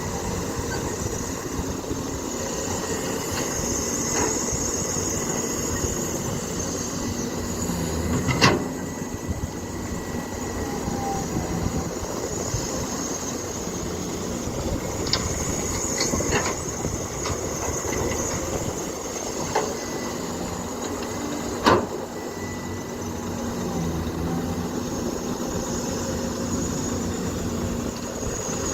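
Excavator at work: its engine runs steadily under high metallic squeals, with a few sharp clanks, the loudest about eight seconds in and again about twenty-two seconds in.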